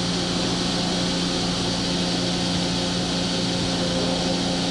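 Okuma MV-V4020 vertical machining center running with its Cat 40 spindle turning: a steady, even machine hum with a few constant tones, no change in speed.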